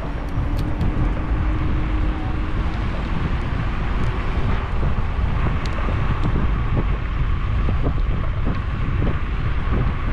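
Wind buffeting the microphone over a steady low rumble, with a faint steady whine coming in about halfway through.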